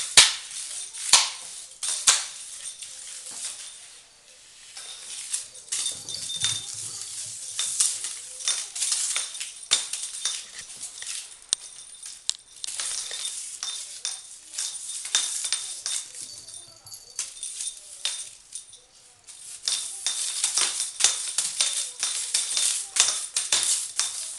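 Kittens at play: a steady run of scratchy clicks and taps, with brief lulls about four seconds in and again near the end.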